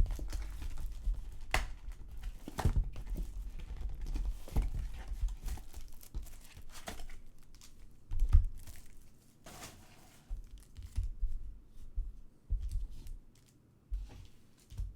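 Foil baseball-card packs being torn open and crinkled, then cards being handled with scattered clicks and taps. The sound is busiest in the first half and thins out to sparse taps after about eight seconds.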